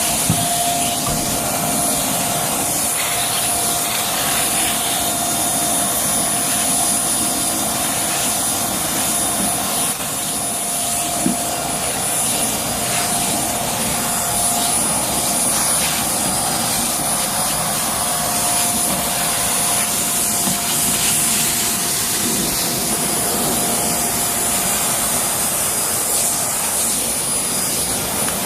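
Hoover Air Steerable upright vacuum cleaner running steadily with its turbo brush attachment over carpeted stairs, a constant motor whine under rushing air.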